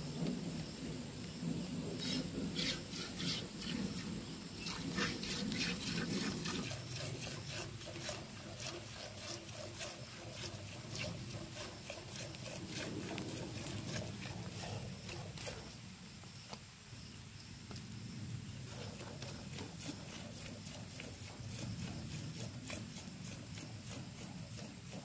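Cow being milked by hand into a steel pail: quick rhythmic squirts of milk hitting the metal, a few each second. A low steady hum underlies the first several seconds.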